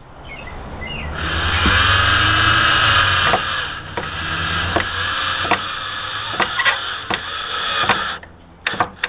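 Cordless drill driving a wood screw into a pine board. The motor whines steadily for about seven seconds, with repeated sharp clicks through the second half, and stops as the screw seats.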